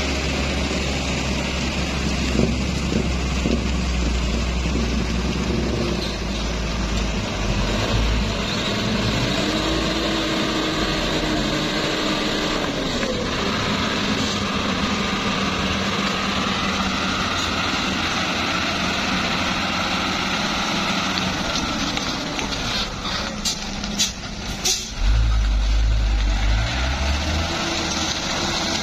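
Diesel engine of a loaded Mitsubishi Fuso tandem-axle dump truck working under load as it pulls through deep mud, its revs rising and falling about ten seconds in. A few short sharp sounds come near the end, followed by a heavy low rumble.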